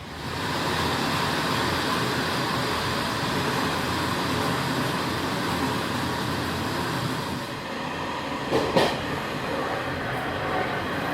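Taiwan Railways ordinary passenger train running along the track: a loud, steady rumble of wheels on rail that starts abruptly, with a pair of sharp clacks over rail joints about eight and a half seconds in.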